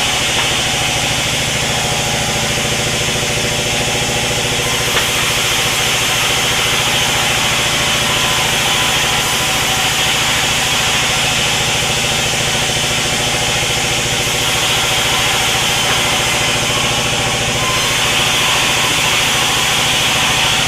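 Sawmill machinery running steadily: an even motor hum with a high hiss above it, holding without a break.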